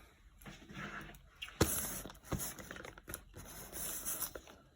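Paper packing being crinkled and torn by hand, with a few sharp clicks and knocks of the packaging along the way.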